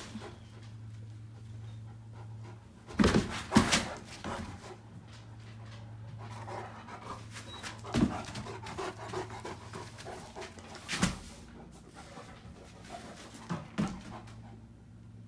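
Great Danes panting and scuffling in rough play with a puppy, with several sharp thumps as paws and bodies hit the floor, loudest about three seconds in, twice in quick succession.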